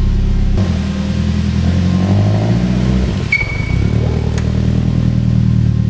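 Nissan SR20 four-cylinder engine running at low revs as the car creeps along under its own power, with a raw, leaky exhaust note from an open O2-sensor port just behind the engine. A short sharp squeak comes a little past three seconds in.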